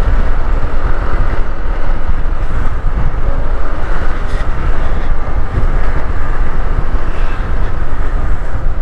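Wind rumbling on the microphone of a moving motorcycle, mixed with the motorcycle's engine and road noise as it rides along steadily.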